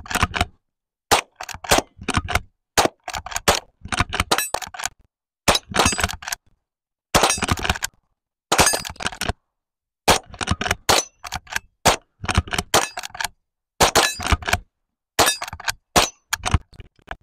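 Two Henry lever-action .22 LR rifles firing a rapid string of sharp cracks, often two close together, with short gaps between strings. A steel gong target rings with a high clang after several of the hits.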